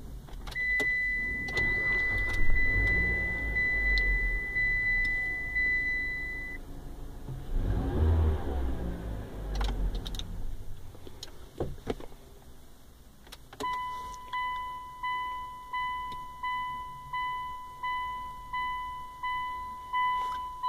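Mitsubishi Lancer pressed on with its push-button Engine Start/Stop: a steady electronic dash tone for about six seconds over a low engine rumble that swells about eight seconds in. From about 14 s a dash warning chime repeats about one and a half times a second, with a few clicks in between.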